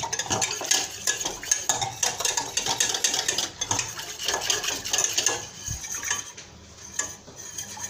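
Wire whisk beating a thin orange juice and cornstarch mixture in a stainless steel saucepan, its wires clicking and scraping rapidly against the metal. The mixture is being whisked so that it thickens smoothly into an orange glaze.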